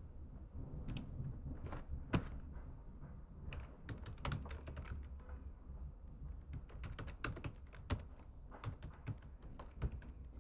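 Computer keyboard being typed on: irregular keystroke clicks, some in quick runs, over a low steady hum.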